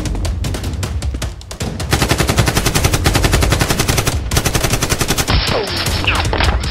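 Automatic gunfire sound effect: scattered shots at first, turning about two seconds in into long dense bursts of many shots a second, with a few swooping whistles near the end.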